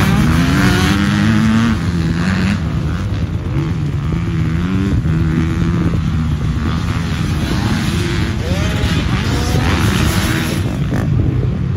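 Several motocross dirt bikes' engines revving on a dirt track, their overlapping pitches rising and falling as the riders work the throttle through corners and jumps.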